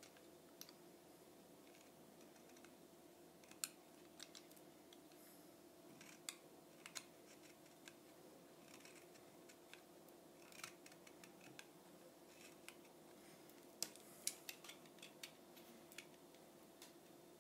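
Faint, scattered clicks and scrapes of a blade shaving down a thin wooden skewer, a few irregular cuts every couple of seconds, over a faint steady hum.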